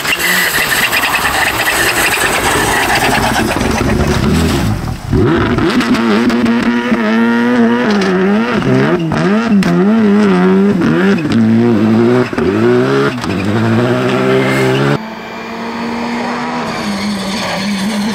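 Rally cars driven flat out on a stage: turbocharged four-cylinder engines revving hard, the pitch swinging up and down with throttle lifts and gear changes. It opens with a loud, noisy rush, and about fifteen seconds in it cuts to a quieter, steadier engine note that climbs slowly.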